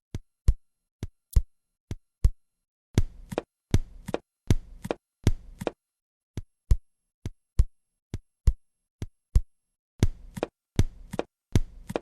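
Simulated heart sounds heard over the pulmonary artery area, played as a comparison. The normal first and second sounds come as paired sharp clicks, roughly one beat a second. They alternate twice with a version in which the second sound is split in two and accented, so each beat comes as a denser cluster of clicks.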